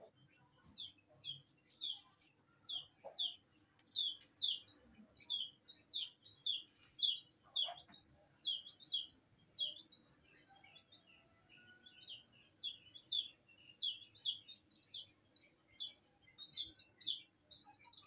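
A small bird chirping over and over, about two short high-pitched chirps a second, each falling in pitch, with a short pause just past the middle.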